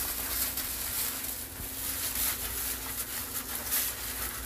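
Gloved hands scrubbing neutralizing shampoo lather through wet hair: soft, irregular wet rubbing and squishing, over a steady low hum.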